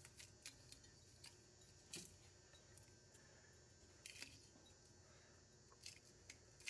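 Faint scattered clicks and crackles of chillies being snapped apart by hand, about a dozen small cracks over near silence.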